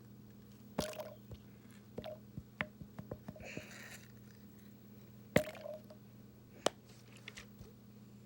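Slime being squished and kneaded by hand as activator is worked into it, with sharp sticky pops and clicks every second or so and a wet swish about three and a half seconds in. A faint steady low hum runs underneath.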